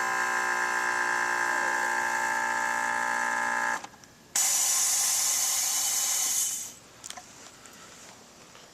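The small electric air compressor of a motorcycle's rear air-ride suspension runs with a steady buzzing whine and cuts off about four seconds in. Half a second later comes a loud hiss of air being let out of the air-ride system, lasting about two seconds.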